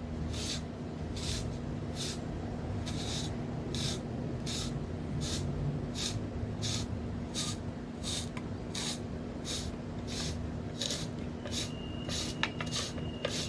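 Zucchini being pushed back and forth across a kitchen slicer blade to cut strips, a short rasping swish on each stroke, about three strokes every two seconds.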